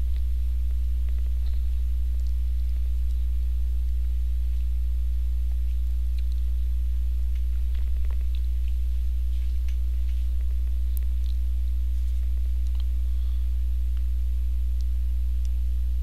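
Steady low electrical mains hum, unchanging throughout, with a few faint ticks.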